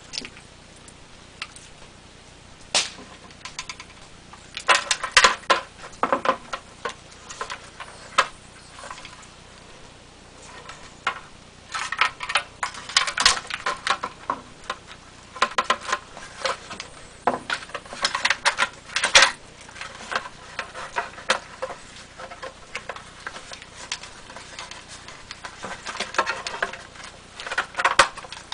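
Irregular clicks, taps and rattles of plastic and metal parts being handled as a Masterbuilt electric smoker's control panel is swapped, coming in clusters with quiet gaps between them.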